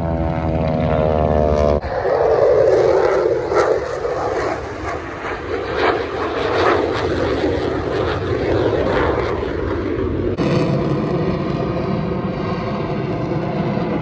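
Aircraft flyovers in three cuts. First come the engines of propeller-driven aerobatic planes passing with a falling pitch. Then, after about two seconds, the loud rushing roar of an F-22 Raptor's twin turbofan jet engines, which runs on through a second cut near the end.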